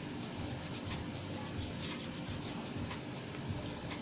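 Hands rubbing together during handwashing, a steady rubbing of skin on skin.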